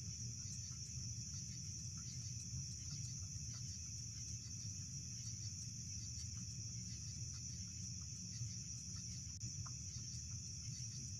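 Steady high-pitched chorus of night insects, with a low steady rumble and a few faint scattered ticks.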